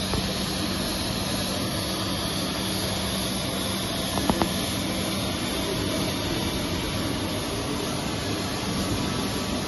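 Labomat 50 B battery floor scrubber running: a steady mechanical whirring drone, with a low hum that fades out about six seconds in. Two short clicks come a little after four seconds in.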